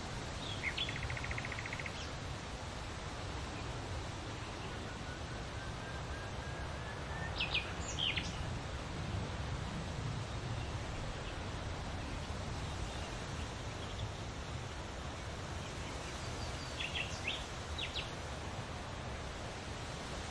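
Wind rustling through leaves in a steady rush, with small birds chirping now and then: a short trill about a second in, a faint rising run of notes, and sharp chirps around eight seconds in and again near the end.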